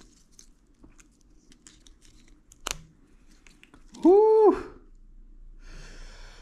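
Protective plastic film being peeled and crinkled off a new Apple Watch Ultra, with soft handling clicks and a sharp click near three seconds. About four seconds in comes a loud, short squeak that rises and then falls in pitch, followed by brief rustling.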